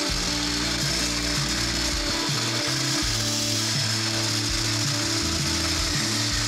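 Electric hand blender running steadily in a plastic beaker, whipping egg whites to stiff peaks, with a constant motor whine and whirr. Background music plays underneath.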